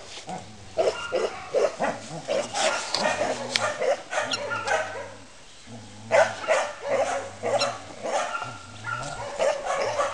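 Four-week-old puppy giving a run of short, high-pitched yips and barks, with a brief lull about five seconds in.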